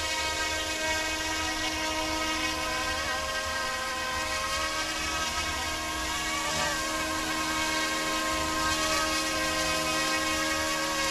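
Small electric scale RC helicopter (UH-60 Black Hawk model) hovering, with a steady whine from its motor and rotor. The pitch wavers slightly as it holds position.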